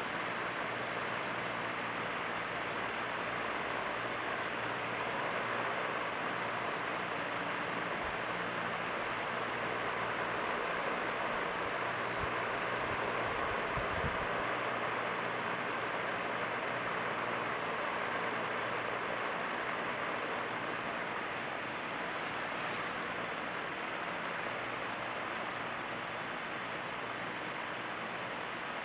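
Handheld fireworks burning, a steady spraying hiss that holds at an even level throughout.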